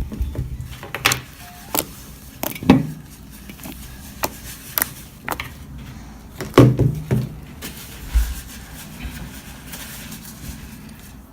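Homemade slime being kneaded, squished and stretched by hand, making irregular wet clicks and pops, a few of them loud.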